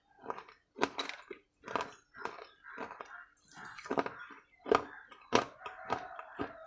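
A person chewing crunchy food close to the microphone, with crisp crunches about twice a second.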